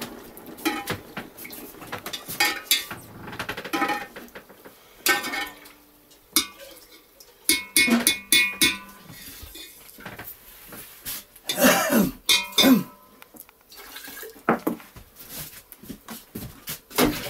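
A metal spoon stirring liquid in an enamel pot, clinking and tapping against the pot's side in scattered strokes, some of them ringing briefly. Two louder, unclear sounds come about twelve seconds in.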